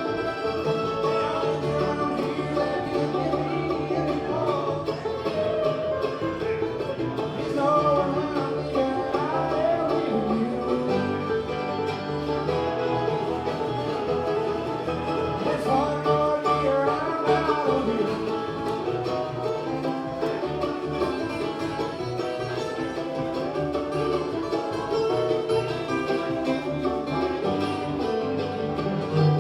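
A bluegrass band playing live, with banjo and guitar up front, in a passage where the recogniser caught no sung words.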